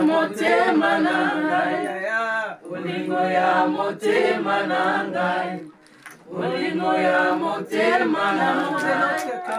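A group of women singing together unaccompanied, a slow song sung in phrases of about two seconds with short breaks between them.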